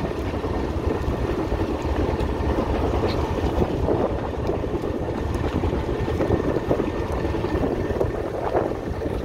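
A fishing boat's engine running steadily, with wind buffeting the microphone.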